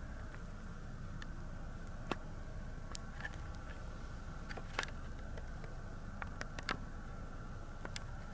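Quiet room tone: a steady low hum with a faint high tone, broken by a dozen or so faint scattered clicks and ticks.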